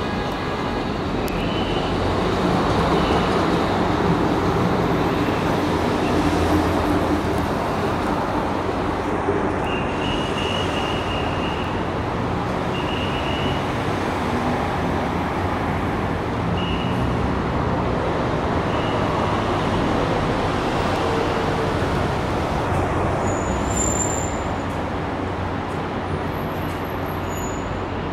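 Steady city road traffic: a continuous rumble of passing cars and buses, swelling slightly a few seconds in, with a few short high-pitched squeaks here and there.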